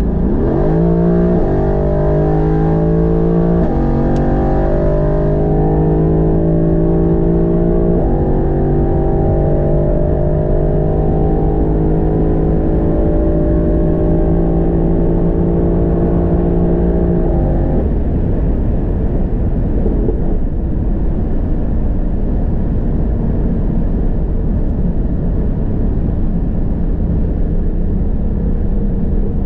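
Mercedes-AMG GT R Pro's twin-turbo V8 through an FI exhaust, under hard acceleration. Its pitch climbs and drops back at each of several quick upshifts, then rises slowly through one long gear. After about eighteen seconds the engine note falls away, leaving a steady rush of wind and road noise.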